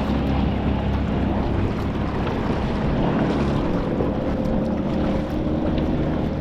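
Fishing kayak under way while trolling: wind buffeting the microphone and water moving along the hull, over a steady low hum with faint tones.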